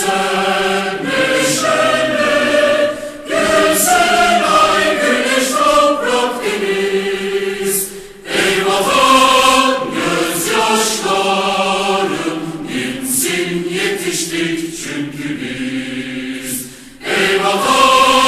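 A choir singing a Turkish patriotic march, its phrases separated by a few short breaks.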